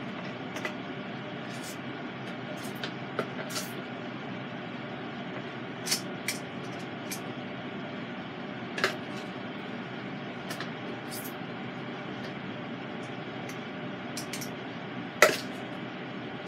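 Steady whirring of a Cosori air fryer oven running while it preheats, with scattered light clicks and knocks; the sharpest knock comes about fifteen seconds in.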